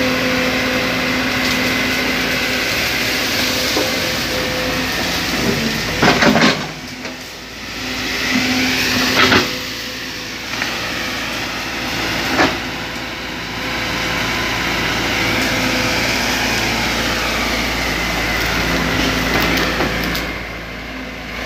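Sumitomo hydraulic excavator's diesel engine running steadily while it works brush, with three loud sharp cracks in the middle stretch.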